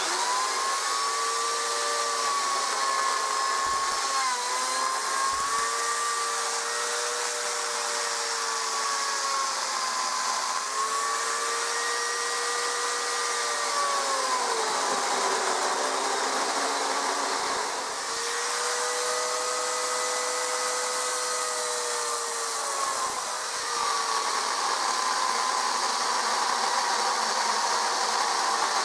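Dolmar chainsaw cutting into a block of wood. Its motor runs steadily, and the pitch of its whine sags and recovers several times as the chain bites into the cut and is eased off.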